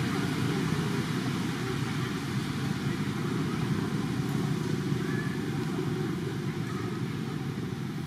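Steady low rumble with a fainter hiss above it and no distinct events.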